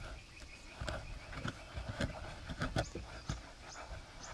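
Wooden pestle pounding wet chili-garlic paste in a mortar: dull, irregular knocks, a couple a second.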